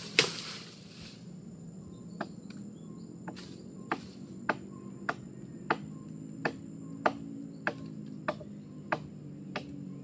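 Wood being chopped with a blade, a sharp knock about every 0.6 s in a steady rhythm. It follows a loud crack with a brief rush of leaves and twigs at the start.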